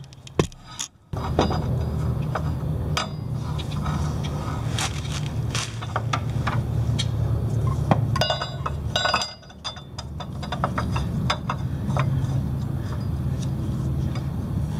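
Metal clinks, taps and scrapes as a motorcycle brake caliper is handled and fitted over the front brake disc, with a quick cluster of clinks about eight seconds in, over a steady low hum.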